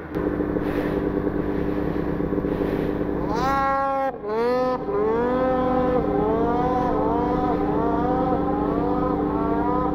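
Snowmobile engine revving hard, its pitch climbing and wavering over a steady engine drone, with a short drop about four seconds in. The sled's track is spinning without finding grip in the bottomless swamp snow.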